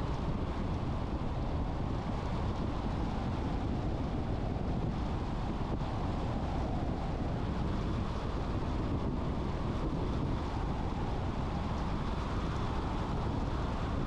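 Steady rushing road and wind noise of a car driving at a constant speed.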